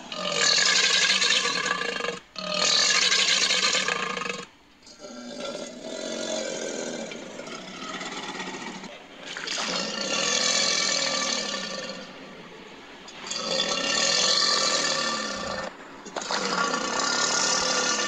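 Made-up creature sound effects built from recorded minotaur vocal sounds and crocodilian sounds: a run of about six harsh roars and growls, each one to three seconds long with short breaks between, and a quieter growl in the middle.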